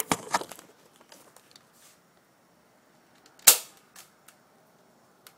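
Plastic Nerf revolver cocked with a few quick clicks, then fired with one sharp snap about three and a half seconds in, spraying BBs from a cut dart. A few light ticks follow as the BBs land on the wooden decking.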